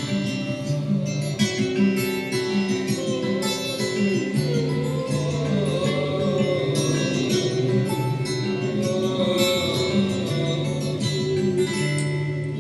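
Instrumental passage of a song: plucked guitar over steady repeating bass notes, with a melody line that bends up and down in pitch about halfway through.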